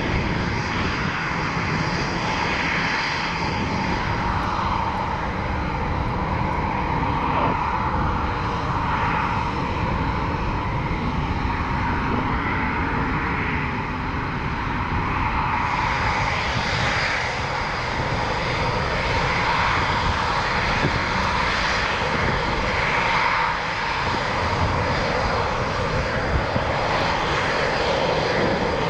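Military jet engines running for the whole stretch: a steady, loud rush of jet noise with a constant whine running through it.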